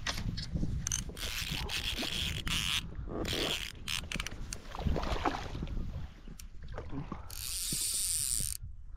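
Handling noise from a fly rod, reel and line: irregular clicks, rubs and scrapes as the line is stripped in by hand and cast again. A steady low rumble runs underneath, and a hiss of about a second comes near the end.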